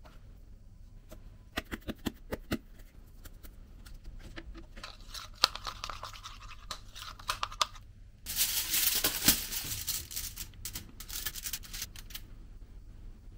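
A spoon stirring and scraping a ketchup-and-mayonnaise sauce around a small plastic bowl, after a few sharp clicks. About eight seconds in comes the loudest part, a crinkling rustle of packaging or foil lasting a second or two, followed by light clicks and taps.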